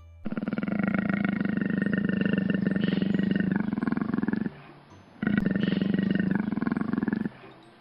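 A large animal giving deep, rasping, rapidly pulsed calls: one long call of about four seconds, then after a short pause a second call of about two seconds.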